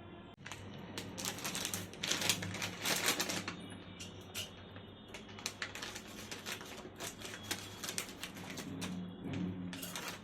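Quick, irregular light clicks and knocks of kitchen work, over a faint steady low hum.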